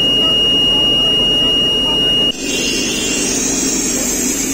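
An engine running steadily, with a constant high-pitched tone over it. About two seconds in the tone cuts off abruptly and a steady high hiss takes over while the engine hum goes on.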